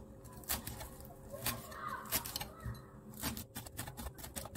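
A kitchen knife chops fresh herbs on a wooden cutting board, the blade knocking on the board. The chops come slowly and unevenly at first, then quicken to about five a second from around three seconds in.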